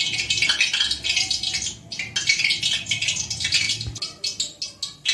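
Oiled hands squeezing and kneading a sticky dough of ground rice, pearl millet, jaggery syrup and sesame in a steel bowl: a wet, crackling squish in bouts, easing off about two seconds in and again near four seconds.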